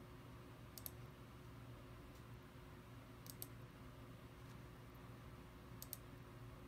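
Three quick double clicks, each a press and release, about two and a half seconds apart, stepping through pictures on a computer. Under them runs a faint, steady room hum.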